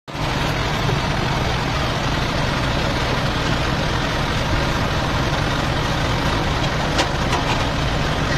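An engine running steadily as it drives a belt-driven irrigation water pump, with a few light knocks near the end.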